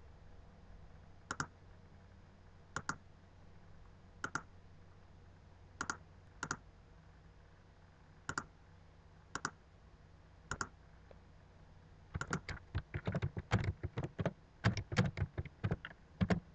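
Computer mouse clicks, about eight separate clicks spaced a second or more apart, then from about twelve seconds in a fast run of keyboard key presses as an IP address is typed.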